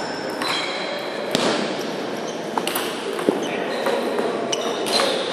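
Table tennis rally: the celluloid ball clicks sharply off the bats and table a few times at uneven intervals, with the loudest hit about three seconds in. Short high squeaks, typical of sports shoes on a hall floor, and a steady hall murmur run beneath.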